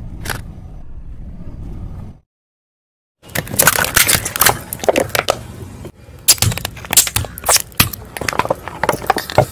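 Hard plastic toy tubes cracking and crunching under a slowly rolling car tyre: a rapid run of sharp cracks and snaps with the loudest breaks in the second half. It is preceded by a low steady rumble of the tyre rolling onto water balloons full of water beads, which cuts off abruptly.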